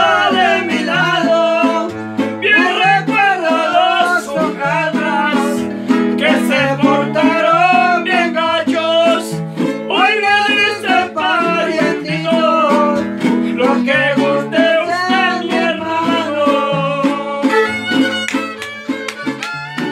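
String-band music: plucked guitars with a steadily alternating bass line under a fiddle melody.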